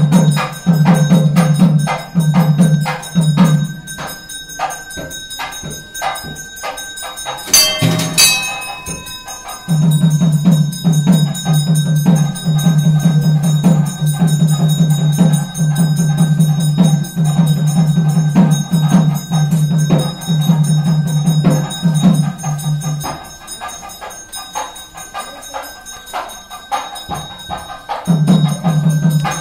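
Temple percussion: a drum beaten in a fast, even rhythm, with bells ringing steadily over it. The drumming stops twice for several seconds, and there is one loud metallic crash about eight seconds in.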